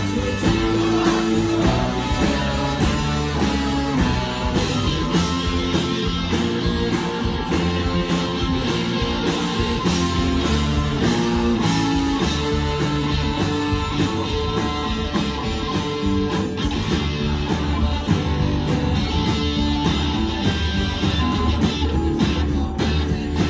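Live rock band playing loudly: electric guitars, bass and drums, with keyboards and a horn section of trumpet, trombone and saxophone.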